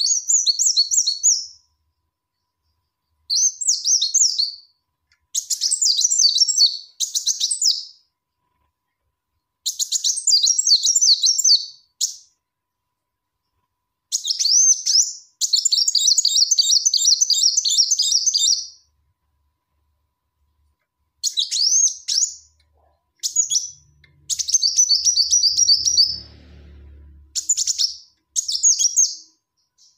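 Female Kolibri Wulung sunbird calling: high, thin, rapid chirps strung into phrases of one to four seconds, with short silences between. It is a lure call the female uses to call the male.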